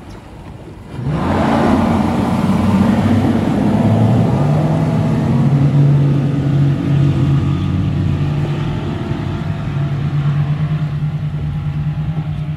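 Three Yamaha 425 hp V8 outboard motors throttling up hard about a second in, the engine note climbing as the boat accelerates, then running steadily at high speed and slowly fading as it pulls away.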